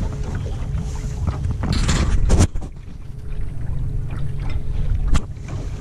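Wind buffeting the microphone and water slapping and splashing against the hull of a small dinghy under way. The loudest splash comes about two seconds in, and a sharp knock against the boat comes near the end. A faint steady whine from the Bison electric outboard runs underneath.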